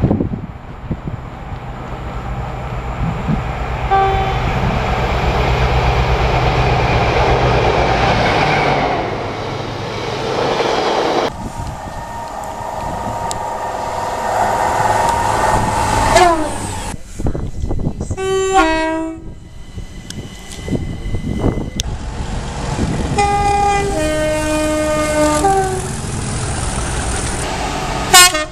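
Trains passing at speed with their running rumble and rush, each sounding a two-tone horn several times: short high-and-low notes, a falling pitch as one passes, and a high-then-low sequence near the end.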